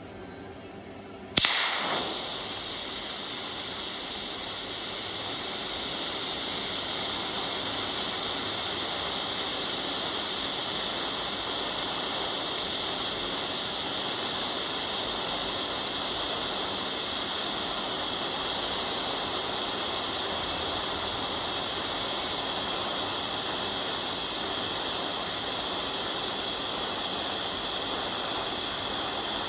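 TIG welding arc starting with a sharp crack about a second and a half in, then a steady hiss as the torch runs an autogenous weld, fusing the metal without filler rod.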